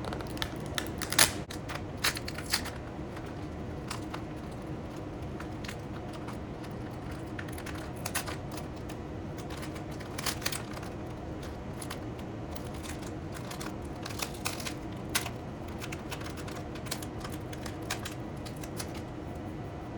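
Yellow low-tack masking tape being handled, pulled and torn by hand: irregular sharp crackles and clicks, the loudest about a second in. A steady low hum runs underneath.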